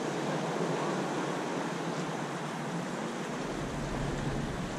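Seawater lapping and sloshing close to a drifting boat, with wind noise on the microphone. A low wind rumble comes in about three and a half seconds in.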